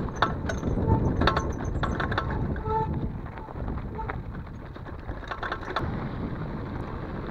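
Mountain bike riding down a rocky gravel trail: steady wind rumble on the microphone, with the tyres crunching over loose stones and the bike rattling and clicking over the bumps.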